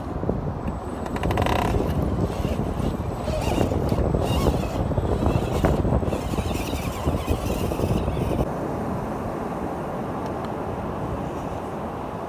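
Radio-controlled scale rock crawler working over boulders: electric drivetrain whirring, with clicks and rattles of tyres and chassis on rock. After about eight seconds this gives way to a steadier, even rush.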